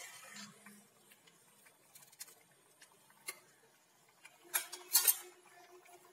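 Thick tamarind-based bean and brinjal gravy boiling in the pot: scattered small pops and plops of bursting bubbles, with a louder cluster of pops about four and a half seconds in.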